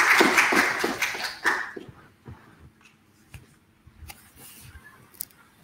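Audience applauding, the clapping dying away after about two seconds into a few scattered claps and small knocks.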